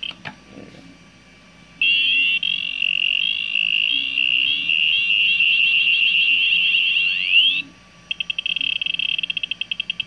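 Arduino-driven piezo buzzer in a prop arc grenade playing its explosion sound effect: a loud, high electronic tone with fast warbling chirps that ends in a quick rising sweep and cuts off suddenly. About half a second later it switches to a rapid pulsing beep for the idle glow mode. A click sounds just after the start.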